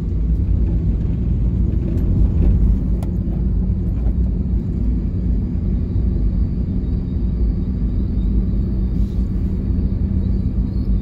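Car driving at a steady speed, its engine and tyres making a constant low rumble heard from inside the cabin.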